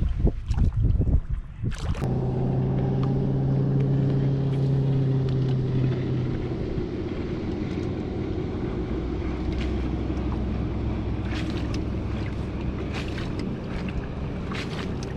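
Outboard motor of a bass boat running at a steady pitch, with wind and water noise over the microphone. Low thumps come in the first two seconds before the engine note sets in.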